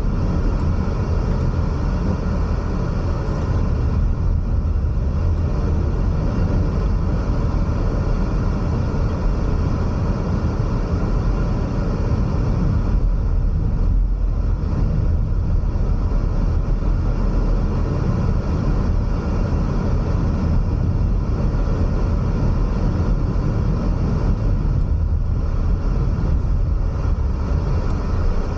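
A car driving along a road: steady rumble of tyres and engine, strongest in the low end, with no changes or sudden sounds.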